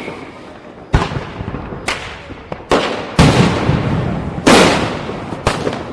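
Diwali firecrackers bursting: about six sharp bangs at uneven intervals, each trailing off in an echo, the two loudest a little past the middle.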